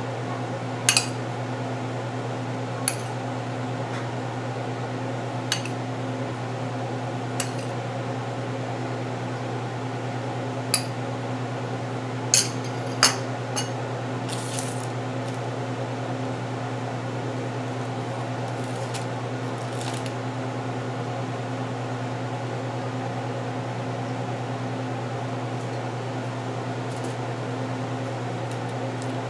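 A metal spoon clinking against a ceramic bowl about eight times in the first half, as ground-beef filling is scooped out and spooned onto pastry. Under it runs a steady low electrical hum.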